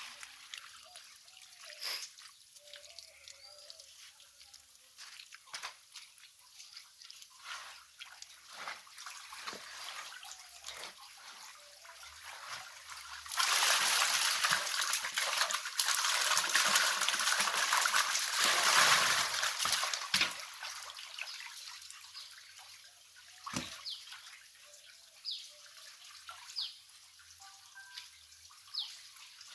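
Live stinging catfish tipped from a plastic crate into a tank of water: a loud rush of splashing that lasts about six seconds, starting a little under halfway through. Before and after it there are scattered small wet splashes and slaps.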